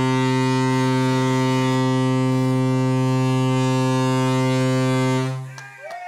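Ship's horn sounding one long, deep, steady blast that stops about five seconds in.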